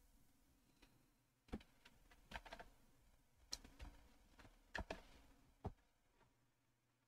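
Faint, scattered clicks of a computer keyboard and mouse, a few short taps at a time with pauses between, falling off about a second before the end.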